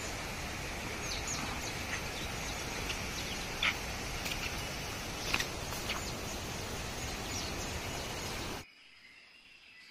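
Steady rushing outdoor noise with a few short bird chirps scattered through it. Near the end it cuts off suddenly to a much quieter background.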